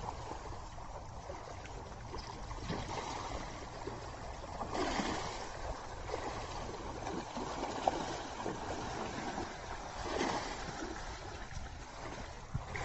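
Floodwater rushing over a paved street, a steady wash of running, churning water that swells louder about five seconds in and again near ten seconds.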